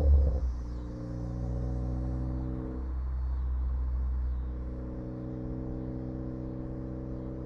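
2014 Ford Focus ST's turbocharged four-cylinder dropping off a rev with a few crackles and pops from its tuned exhaust right at the start, the sign of a crackle tune on a catless downpipe, then idling steadily with a brief change in tone about three seconds in.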